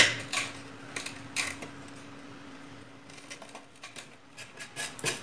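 Steel chisel paring and scraping at the edge of a slot in a plywood table-saw top: a sharp click at the start, a few more scrapes over the next second and a half, then a run of quicker, softer scrapes near the end. A faint steady hum sits underneath.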